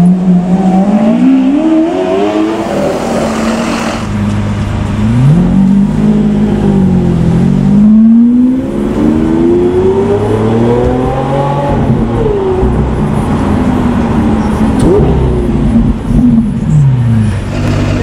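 Loud sports-car engines revving and accelerating, the engine note climbing and dropping in pitch several times.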